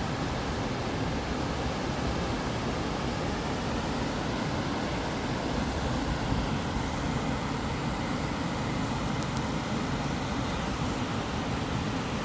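Continuous white-noise sleep sound: a steady, unchanging hiss with a fuller low rumble, no rhythm or variation.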